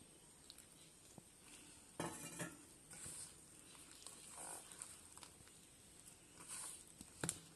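Faint rustling and scraping of hands mixing wet flour into dough in a metal basin, with a louder scrape about two seconds in and a sharp clink against the basin just before the end.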